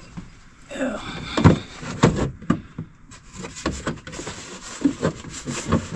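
Plastic firewall splash guard being worked into place around the wiring and steering column of a side-by-side: irregular knocks, clicks and scraping of plastic against the machine, with the loudest knock about a second and a half in.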